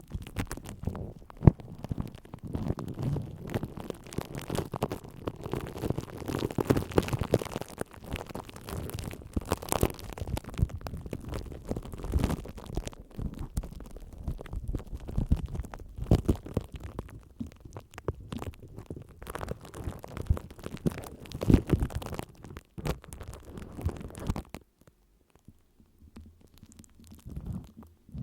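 Close-miked scratching and rubbing: a dense run of crackles and small taps, stopping suddenly a few seconds before the end.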